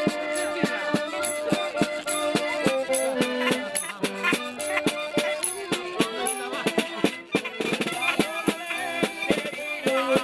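Small street band playing live: a saxophone carries the tune over a steady beat on drums and cymbal, with a shaken rattle in the percussion.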